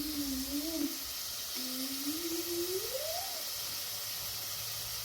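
A voice making drawn-out wordless sounds: a long tone held roughly level, then a slow rise and fall in pitch, over a steady background hiss.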